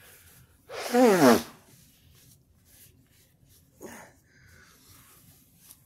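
A woman's loud breathy vocal burst about a second in, voiced and falling steeply in pitch, with a faint short sound near four seconds.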